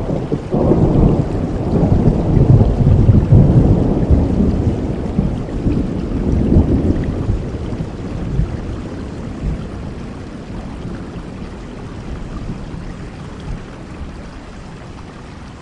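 A long rolling peal of thunder over steady rain: the rumble builds within the first second, is loudest a few seconds in, swells once more and dies away over about ten seconds, leaving the even hiss of the rain.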